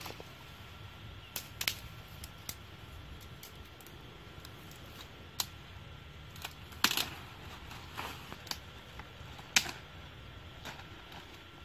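Irregular sharp snaps and crackles of stems and twigs breaking as someone pushes through tall grass and brush. The loudest snaps come about seven and nine and a half seconds in, over a steady low hiss.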